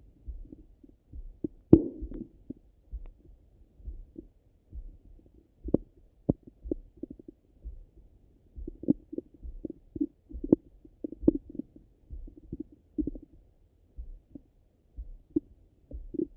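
Stomach and bowel sounds heard through a Littmann stethoscope on the belly soon after breakfast: irregular gurgles, pops and squelches of a digesting gut, the loudest about two seconds in. Under them runs a low, regular thump about once a second.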